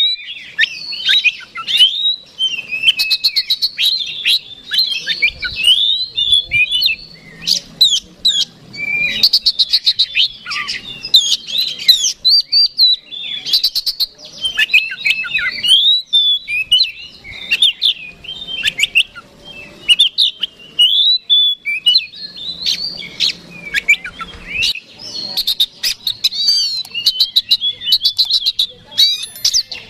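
Oriental magpie-robin singing a loud, non-stop, combative song: a fast stream of varied whistles and slurred notes broken by runs of rapid ticking, with only short pauses.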